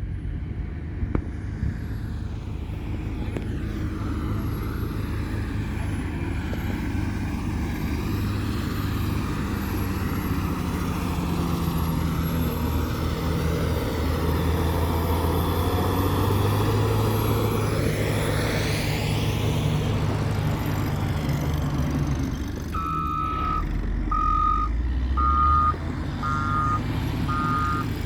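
Engine of a heavy construction machine or truck running steadily. A little over twenty seconds in, its reversing alarm starts, giving a regular series of short beeps.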